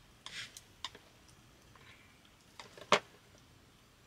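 Scattered light clicks and taps of utensils against a plate and a small cast-iron pot as ingredients are moved into it, with a brief rustle early on and one sharp click about three seconds in.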